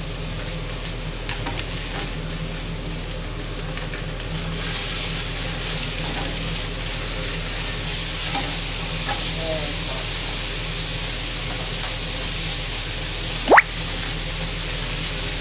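Sea bream sizzling in a hot grill pan as it is turned with metal tongs and a spatula. Near the end comes one short, sharp rising squeak.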